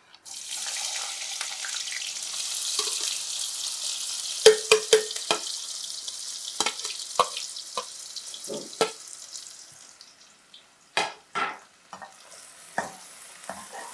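Chopped onions and green chillies dropped into hot oil in a kadai: a sudden loud sizzle that slowly dies down over several seconds. A spatula knocks and scrapes against the pan as they are stirred.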